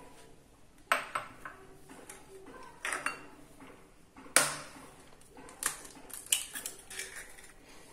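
Sharp clinks and knocks of glass bowls being set down and handled on a marble countertop, the loudest about halfway through, followed by several lighter taps.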